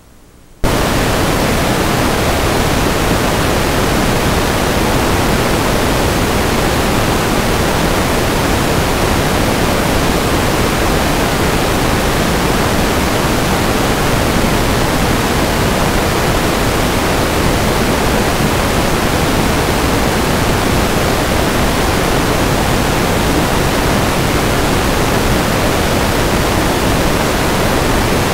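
Loud, steady static hiss from the analog FPV video receiver recording, cutting in suddenly about a second in when the quad's video signal is lost.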